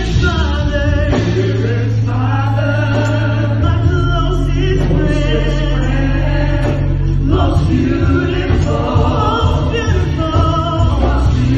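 Live gospel singing: a woman's strong alto lead voice with backing singers joining in, over held low bass notes that change every few seconds.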